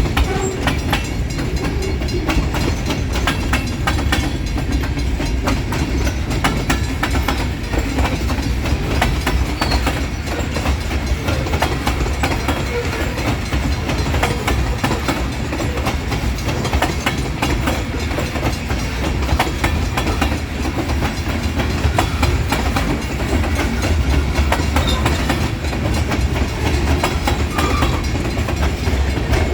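Cars of a long freight train rolling past, steel wheels clattering steadily over the rail joints with a continuous low rumble.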